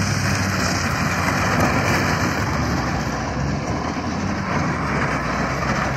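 Diesel truck engine running with a steady, even rushing noise over it.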